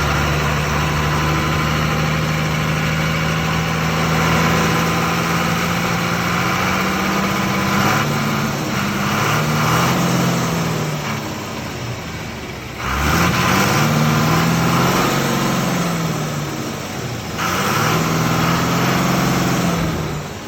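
Ashok Leyland BS3 H-series diesel truck engine idling steadily, then revved up and let fall back several times, the revs getting harder in the second half, with sharp rises about two-thirds of the way through and again near the end.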